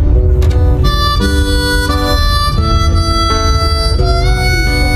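Background music: a melody of held notes that change about every half second, over a heavy bass.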